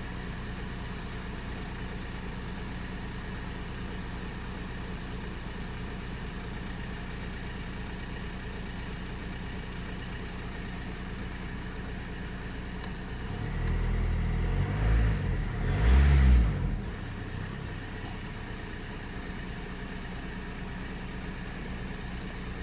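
VW Golf IV 1.9 TDI (ASZ) four-cylinder turbodiesel idling cold. About two-thirds of the way through it is revved twice in quick succession, pitch rising and falling each time, then it settles back to a steady idle.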